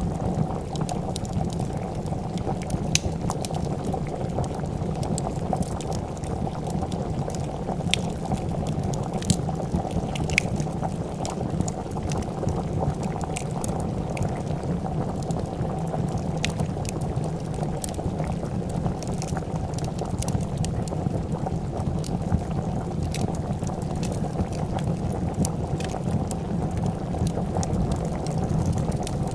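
A pot of soup boiling with a steady, dense bubbling, over the irregular snaps and pops of a crackling wood fire.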